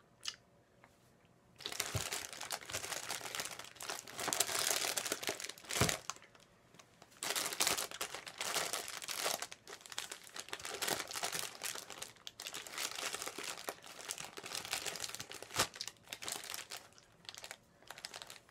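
Candy packaging crinkling and rustling as it is handled, in long bouts broken by short pauses.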